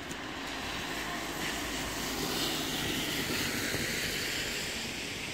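A car passing on wet asphalt, its tyres hissing on the water, growing louder to a peak about halfway through and then fading.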